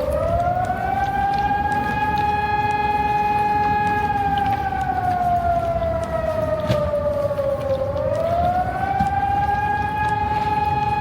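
Hörmann ECN 1200 electronic civil-defence siren sounding a public warning wail. The pitch rises over the first second or so, holds high, slides down slowly until about eight seconds in, then rises again and holds.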